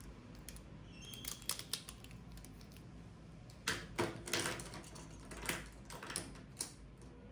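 Pens being handled and set down: a scatter of light clicks and taps as the plastic barrels knock together, busiest about a second in and again around four seconds in, with a few single taps after.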